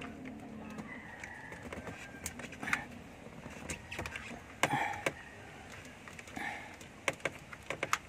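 Faint, scattered clicks and taps of fingers working plastic behind a car's AC control panel, straining to twist out a bulb socket that is stuck very tight.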